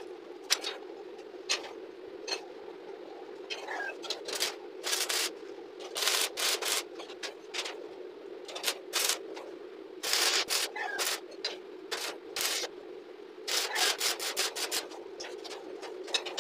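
Loose steel scroll pieces clinking and scraping as they are shifted by hand within a flat-bar grill frame on a concrete floor, in quick irregular runs of sharp clicks, over a steady low hum.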